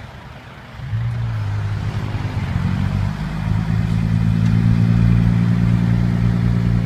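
Diesel engine of a customised six-wheel dump truck driving past. It comes in suddenly about a second in, grows louder, then holds a steady low drone.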